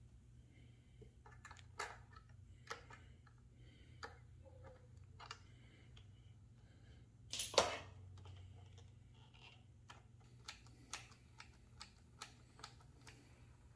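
Faint, scattered clicks and small taps of a hand tool and the rubber terminal boot at a motorcycle battery's positive terminal as the terminal bolt is worked loose, with one louder clatter about halfway through, over a faint low hum.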